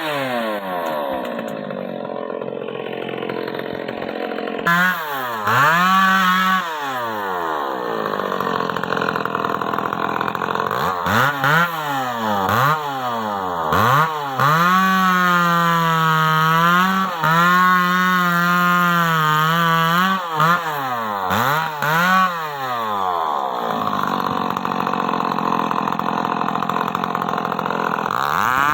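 Stihl MS 381 two-stroke chainsaw being throttled up and down again and again. Its pitch climbs to full revs, holds there for several seconds in the middle, and drops back toward idle each time the throttle is released.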